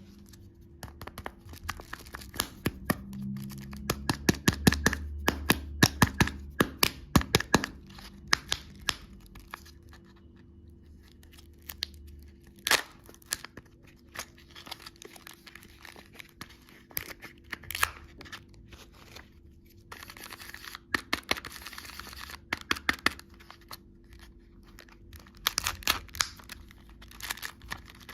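Candy wrappers being torn open and crinkled by hand: a dense run of sharp crackles in the first third, then sparser crackles and a stretch of steady rustling about two-thirds of the way through.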